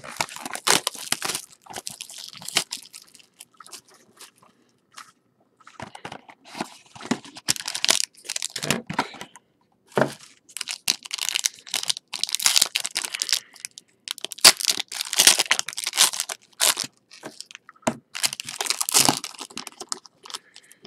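Sealed box of trading cards being unwrapped and opened by hand: plastic wrapping and packaging crinkling and tearing in irregular bursts of crackling, with short pauses.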